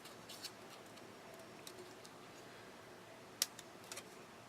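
A few faint clicks and taps of small craft tools and paper being handled on a desk, with one sharp click a little over three seconds in.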